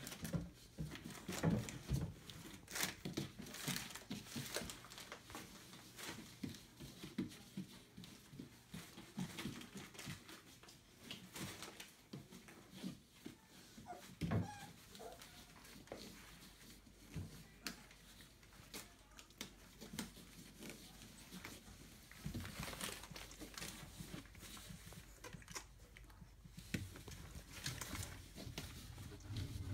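27-day-old Entlebucher puppies moving about, with faint, irregular scuffling and rustling and a brief squeak about halfway.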